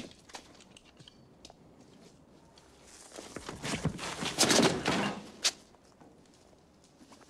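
Sounds of a struggle on a floor: a sharp knock at the start and scattered knocks, then a louder stretch of scuffling noise about three to five seconds in, ending in a sharp knock.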